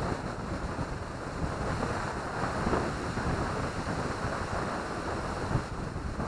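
Strong wind blowing over the microphone: a steady, rough rushing noise.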